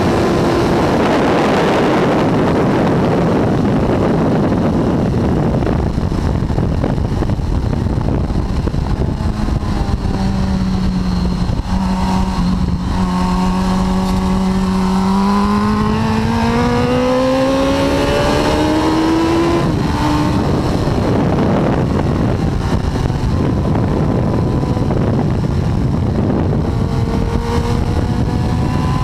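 Suzuki GSX-R1000 K4's inline-four engine running at speed under heavy wind rush on the bike. The engine note holds steady, rises for several seconds, drops suddenly about twenty seconds in, and climbs again near the end.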